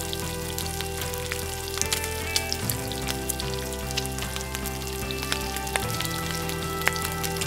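Slices of Spam frying in a lightly oiled pan: a sizzle with many small crackling pops. Background music with held notes plays underneath.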